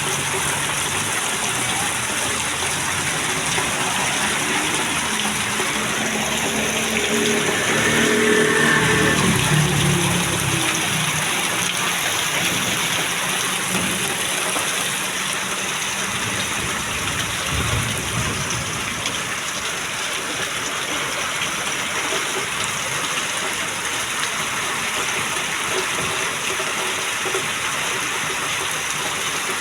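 Heavy rain pouring steadily, with water gushing. About eight seconds in, an engine passes and the sound briefly gets louder.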